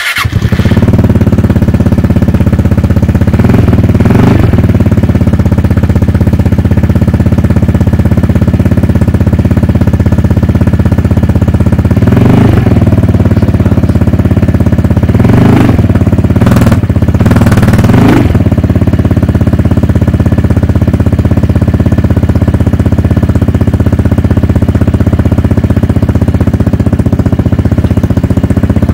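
Vespa GTS 300 HPE's single-cylinder four-stroke engine idling through a Scorpion Red Power aftermarket silencer, with two quick throttle blips a few seconds in and four more in the middle, each rising and falling straight back to idle.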